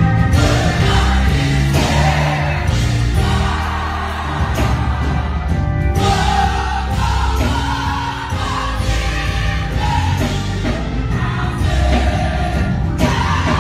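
Live gospel choir singing with instrumental accompaniment.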